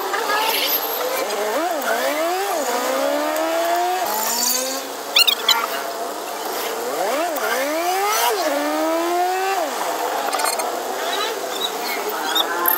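Passenger jeepney accelerating on the road, its engine and gearbox rising in pitch and then dropping sharply at each gear change, twice in long climbs. A brief sharp clatter about five seconds in.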